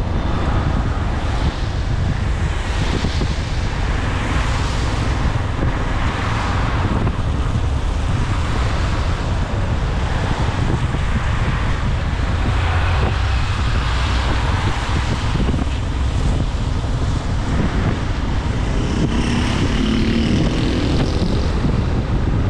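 Wind rushing over a motorcycle-mounted camera's microphone while riding on a wet road, over steady engine and tyre noise. The hiss swells and fades every few seconds. Near the end a low engine tone rises briefly.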